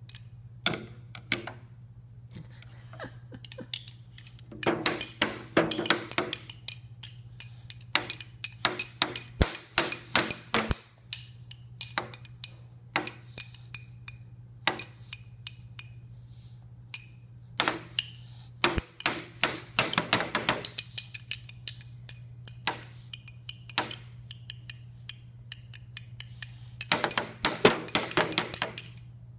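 Toy drum struck by a child with plastic drumsticks: irregular taps broken by several flurries of rapid strikes.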